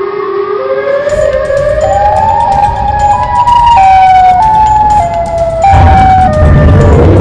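Siren sound effect wailing in pitch steps, climbing over the first few seconds and then stepping back down. A loud low rumble joins it near the end.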